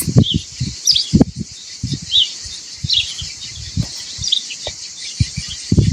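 A small bird chirping over and over, one short high note roughly every two-thirds of a second, with scattered low thumps and rumbling underneath.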